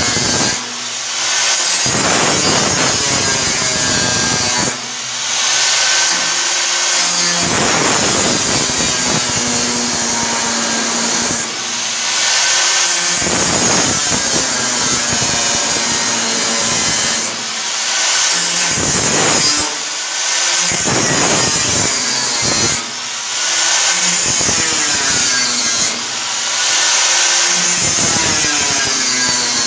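Angle grinder with a cut-off disc cutting through steel: a loud, continuous high-pitched grinding screech that dips briefly every few seconds.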